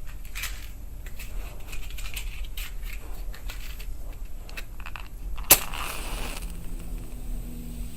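Matchbox and matches handled with many small rattling clicks, then a match struck once, sharply, about five and a half seconds in, flaring with a hiss that lasts about a second.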